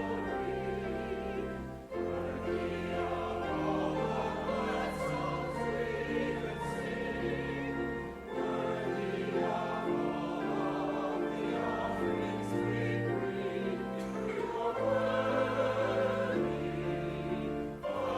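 A hymn sung by many voices over held instrumental chords with a steady bass line, with short breaks between phrases about two seconds in, about eight seconds in and near the end.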